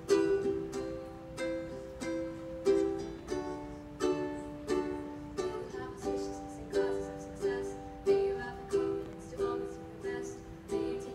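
Ukulele strumming chords in a steady rhythm, about three strums every two seconds, each ringing out before the next, with the chords changing every few strums. It is the instrumental introduction before the singing starts.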